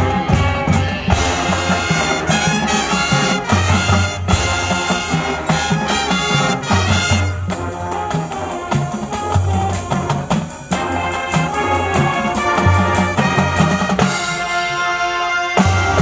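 Marching band brass playing a rock-styled show tune over a drum kit and heavy bass notes. Near the end the low end drops out for a thinner passage, then the full band comes back in.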